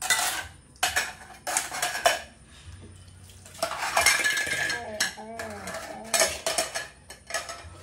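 Metal pots and utensils clinking and clattering as they are handled, in irregular clusters of sharp strikes with short pauses between them.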